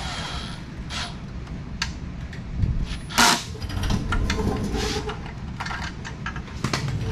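Scattered knocks and clinks of hand tools and scooter parts being handled during assembly, the loudest about three seconds in, over a low steady rumble.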